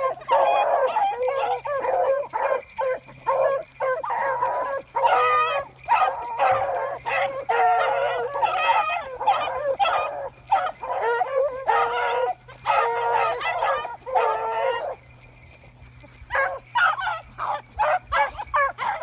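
A pack of beagles baying on a rabbit's scent trail, several hound voices overlapping in repeated bursts, among them one male's raspy, hoarse mouth. The baying drops out for about a second and a half near the end, then picks up again.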